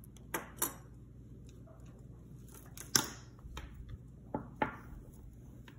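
Jewelry being handled and set down on a cloth-covered table: a scatter of small clicks and taps of metal and bead pieces knocking together, the sharpest about three seconds in.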